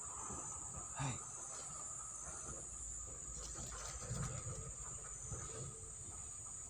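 Forest insects buzzing in a steady, high-pitched drone, with a few soft low bumps. The sound cuts off suddenly near the end.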